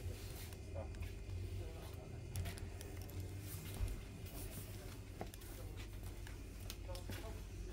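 Grocery shop ambience: a steady low hum with faint background voices and scattered small clicks and rustles.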